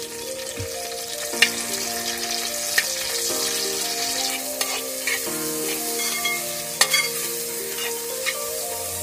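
Chopped onions, coconut pieces, ginger and green chillies sizzling in hot oil in a large metal pot, with freshly added curry leaves. A spoon clicks against the pot a few times as the mix is stirred.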